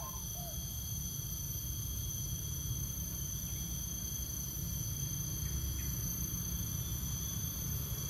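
Steady chorus of insects, several high-pitched even whines sounding at once without a break, over a low steady rumble.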